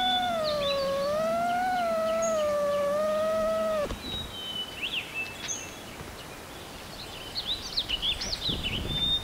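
FPV quadcopter's brushless motors whining, the pitch wavering up and down with the throttle, then cutting off suddenly about four seconds in as the quad sets down. Birds chirp after that.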